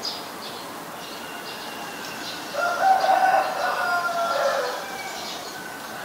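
A rooster crows once, a single pitched call of about two seconds starting a little before halfway. Small birds chirp with high, short notes throughout.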